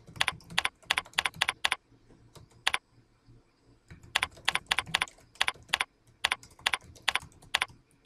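Typing on a computer keyboard: a quick run of keystrokes, a lone key press, then a second longer run of keystrokes after a pause of about two seconds.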